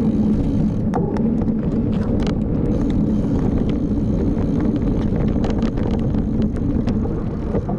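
Bicycle rolling along a dirt trail: a steady low tyre rumble with scattered clicks and rattles from the bike and the ground.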